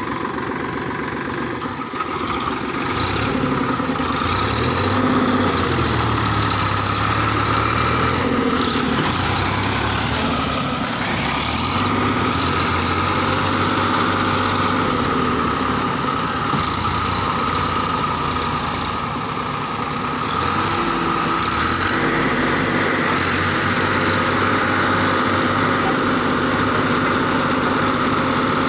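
Sonalika DI 745 III tractor's diesel engine running under load while the tractor is stuck in deep paddy-field mud, its revs rising and falling several times. It gets louder about three seconds in.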